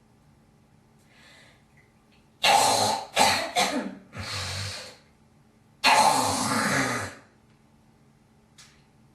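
A young woman coughing: about two and a half seconds in, three quick harsh coughs, then a voiced throat-clearing. About six seconds in comes a long hawk of a little over a second as she hocks up phlegm.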